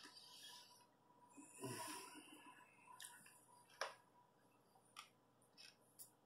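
Faint sounds of a person eating crispy fried pork crackling: a breath about a second and a half in, then a few short sharp crunches, the loudest near four seconds.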